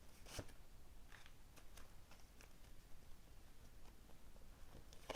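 Faint, scattered light clicks and taps of tarot cards being handled and drawn from the deck, against near-silent room tone.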